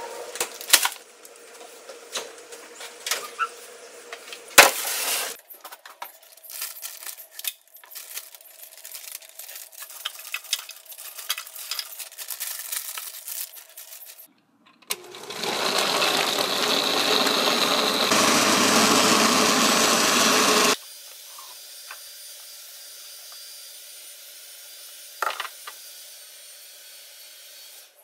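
Frozen berries knocking and clattering as they are tipped into a plastic blender jar, with rustling of the bag. Then the countertop blender runs loudly for about six seconds, changing tone partway through, and cuts off suddenly as it purées a berry smoothie.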